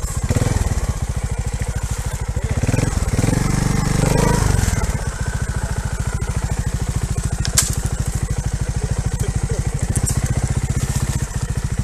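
Trial motorcycle engine idling in a steady, even beat, with short throttle blips near the start and about three to four seconds in. A single sharp click comes about seven and a half seconds in.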